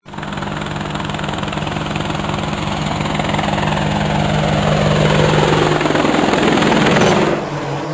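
Quadcopter drone's propellers buzzing with a steady hum, growing louder for several seconds and then dropping back sharply near the end.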